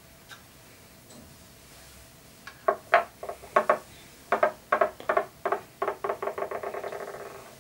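A run of sharp, ringing clicks of hard statue parts knocking together or against the table. They start about two and a half seconds in, come faster and faster, and run into a quick rattle that dies away near the end.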